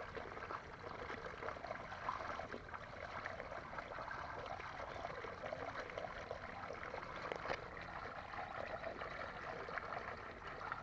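Water splashing and trickling steadily, with one sharp click about seven and a half seconds in.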